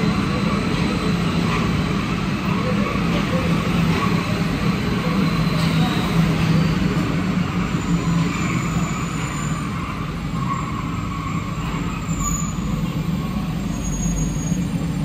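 Steady cabin noise inside an Alstom NS-93 rubber-tyred metro car, with a low hum that holds throughout. A faint high whine comes in and out after about eight seconds.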